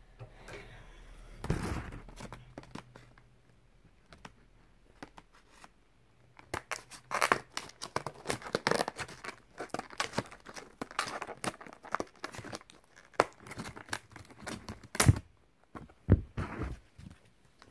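Clear plastic blister packaging of a diecast model car being cut open and handled, crinkling and tearing in dense, irregular crackles and clicks that start about a third of the way in, with one sharp louder click near the end.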